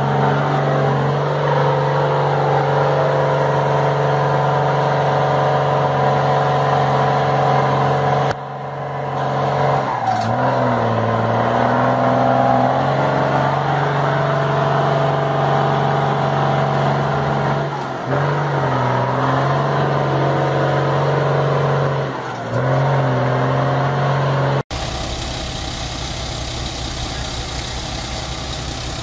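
Bus engine revving hard and held under load as the bus tries to drive out of mud with its wheels losing grip, the pitch dipping and climbing again about four times as the throttle eases and reopens. Near the end it cuts to a heavy truck's engine running lower and more evenly.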